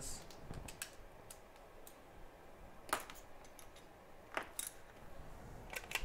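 A handful of light clicks and taps of small hand tools being set down and picked up on a workbench mat, the sharpest about three seconds in.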